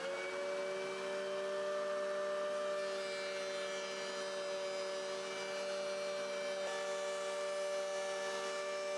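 Benchtop thickness planer running with a steady motor whine as wooden strips are fed through it.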